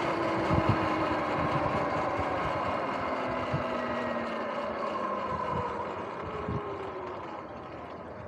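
Sur-Ron X electric dirt bike's motor and drivetrain whine, sliding steadily down in pitch and getting quieter as the bike slows to a stop, with wind buffeting the microphone.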